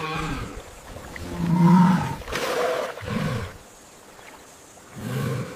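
A distressed cow bellowing: about five low calls in a row, the loudest about a second and a half in.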